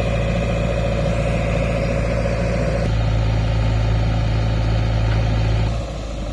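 Heavy diesel engine running steadily. Its note changes about three seconds in, and it drops in level shortly before the end.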